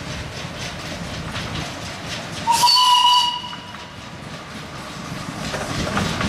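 Narrow-gauge steam locomotive running toward the listener with its working sound, then one short, loud blast on its steam whistle about two and a half seconds in. The running sound grows louder near the end as the engine comes closer.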